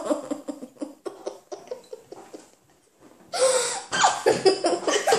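Two children laughing and giggling, one of them with a mouth full of marshmallows. The laughter dies down to a short hush a little past halfway, then starts again loudly.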